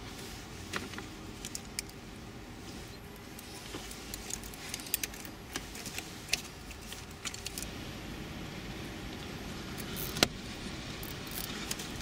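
Small plastic clicks, taps and rustles from wiring-harness connectors and cables being handled under a car's dashboard, with one sharper click about ten seconds in, over a steady low hum.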